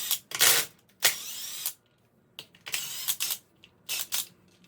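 Ratchet wrench clicking in about six short bursts, the longest about a second in.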